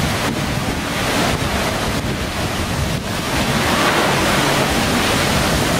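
Water rushing down a water slide chute and splashing around a child sliding through it, a steady loud rush.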